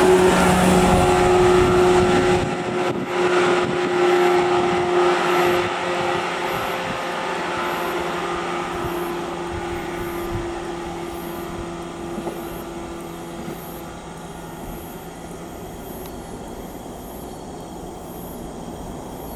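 A train led by a DD51 diesel locomotive passes close by and draws away: the steady hum of the diesel engines and the rumble of wheels on rail are loud at first, then fade away steadily.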